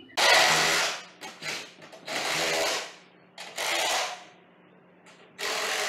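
Cordless drill run in four bursts, with a few brief blips between them, driving the bolts that secure a garage door opener's powerhead to its ceiling mounting straps; the last burst starts near the end and is the longest.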